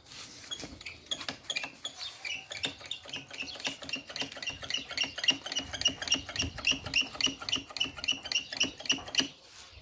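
ATV's hydraulic brake lever being pumped fast, squeaking about three or four times a second, as fresh fluid is pushed through the brake line to bleed it.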